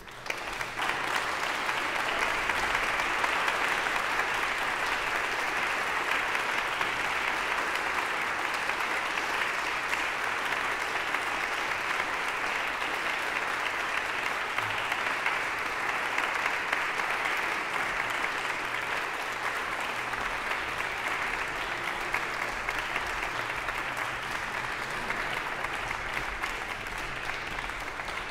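Audience applause that breaks out all at once and holds steady, easing slightly near the end.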